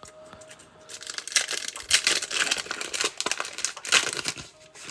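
A Donruss Optic football trading-card pack's wrapper being torn open and crinkled by hand. The crinkling runs in dense bursts from about a second in until shortly before the end.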